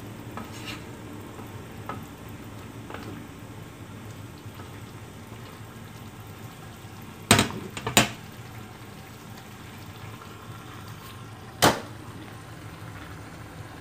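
A wok of pumpkin, tofu and chicken simmering in sauce with a steady sizzle as a wooden spatula stirs it. Three sharp knocks stand out, two close together about seven seconds in and one about a second before the end.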